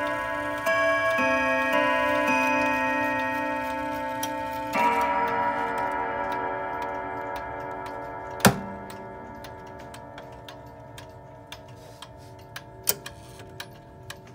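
Chime rods of an antique Girod art deco dual-chime wall clock struck by its hammers: four quick notes in the first couple of seconds and one more at about five seconds, then the rods ring on and slowly fade. A sharp click comes a little past halfway, followed by faint clicks and ticks.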